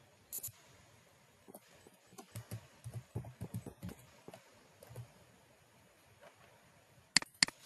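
Computer keyboard typing: soft, irregular key clicks, ending with two sharper, louder clicks close together near the end.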